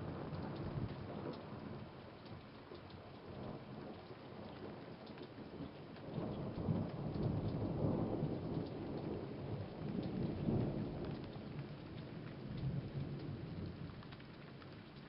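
Thunder rolling over steady rain, with drops ticking. A long rumbling peal builds about six seconds in, swells again a little later, then dies away toward the end.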